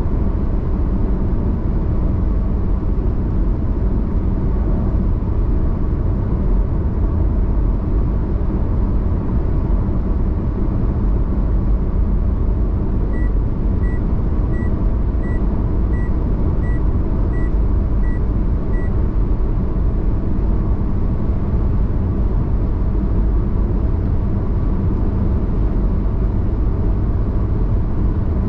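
Steady road and engine noise of a car cruising at highway speed. Around the middle comes a run of about nine short, evenly spaced high electronic beeps, a little under one a second.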